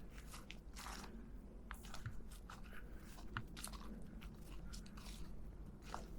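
Footsteps on a mountain trail, irregular crunches and crackles underfoot.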